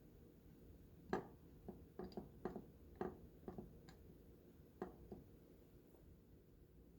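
A series of about ten light, sharp taps and clicks, irregularly spaced over about four seconds, against a quiet room.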